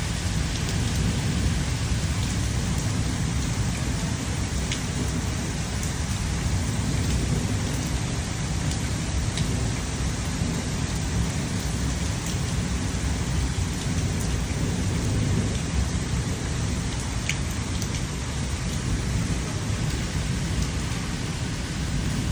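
Steady rain falling, with a deep continuous low rumble beneath it and faint sharp drop ticks now and then.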